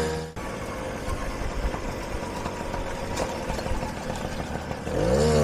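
Small two-stroke Puch moped engines running as the mopeds ride along: a rough, uneven buzz. Near the end, a louder, steadier engine note comes in.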